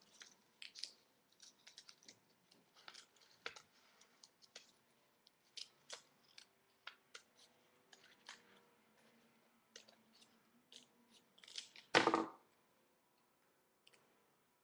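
Scissors snipping paper in a long run of short, quick cuts, then one louder thump about twelve seconds in.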